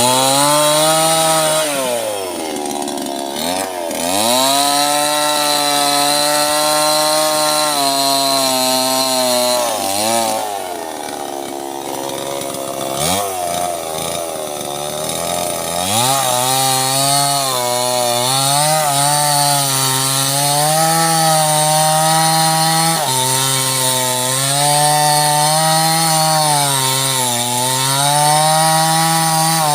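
Small chainsaw cutting sengon wood under load. The engine note sags and recovers several times as the chain bites into the cut and is eased off.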